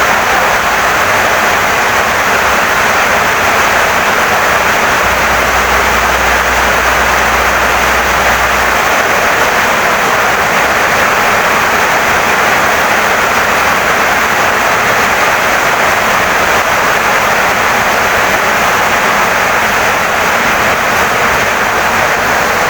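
Heavy rain pouring steadily onto a wooden house, a loud, even hiss that does not let up.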